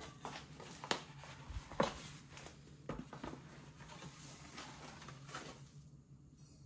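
Quiet handling sounds: a paper bag of washing soda rustling and its granules pattering into a kitchen sink drain, with a few light knocks in the first three seconds.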